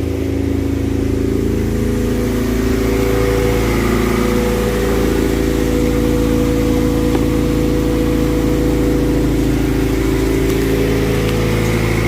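Honda Civic EG hatchback's four-cylinder engine idling steadily while it warms up, running after a jump-start from a power bank on a weak battery.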